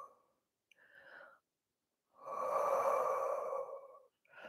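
A woman breathing while holding a stretch: a short faint inhale about a second in, then a long audible exhale of about two seconds.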